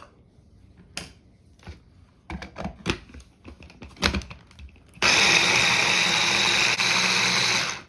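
A few scattered clicks and knocks, then about five seconds in a blender's motor starts abruptly and runs loud and steady for about three seconds, pureeing onion, garlic, ginger and coriander seeds, before cutting off.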